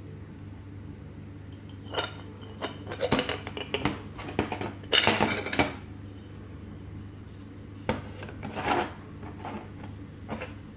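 Small titanium and aluminium alcohol-stove cylinders clinking and scraping against each other and a metal tabletop as they are pulled apart and set down. Several clinks come in a busy run, the loudest about halfway through, then a few lighter taps later.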